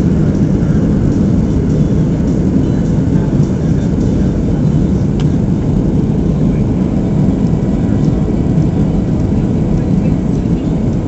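Steady rumble of a Boeing 737 in flight as heard inside the cabin: engine and airflow noise with a faint steady whine above it.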